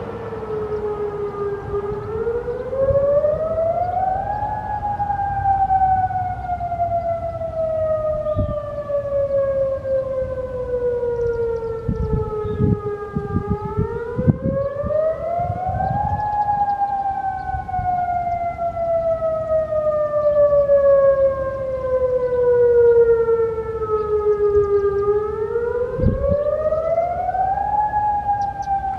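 Federal Signal Modulator 6048 outdoor warning siren sounding a wail. Its pitch climbs quickly over about two seconds and then slides slowly down over about nine, three times over.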